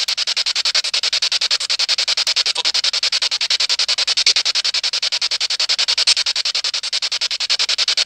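Steady, rapidly pulsing hiss, about a dozen pulses a second, with no break.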